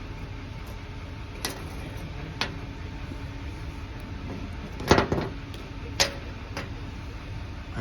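A few light metallic clicks and clinks from the worn connecting-rod bearing shells being handled, the loudest about five seconds in with a short ring, over a steady shop hum.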